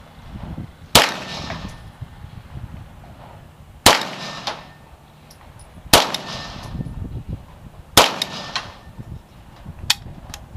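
Cobray M-11/Nine 9mm pistol firing four single shots, two to three seconds apart, each sharp crack trailing off briefly. Two fainter clicks come near the end.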